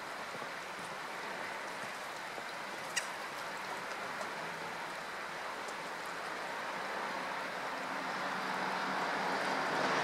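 Steady outdoor background rush, like running water or distant traffic, swelling a little near the end, with one sharp click about three seconds in.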